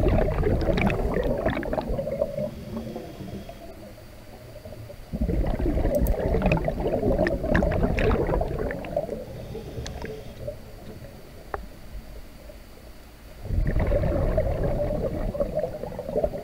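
A scuba diver's exhaled breath bubbling out of the regulator underwater: three exhalations, at the start, about five seconds in and near the end. Each is a rumbling, crackling gurgle that fades over a few seconds.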